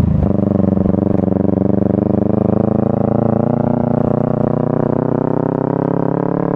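Honda Supra underbone motorcycle with a swapped-in Kawasaki Ninja 250 engine, running steadily while being ridden, its pitch holding nearly level with a slight rise.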